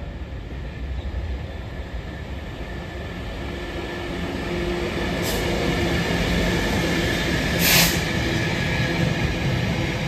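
Freightliner Class 66 diesel-electric locomotive running past with its two-stroke V12 engine, growing louder as it approaches, followed by rumbling hopper and flat wagons. A short hiss comes about five seconds in, and a louder one, the loudest sound, near eight seconds.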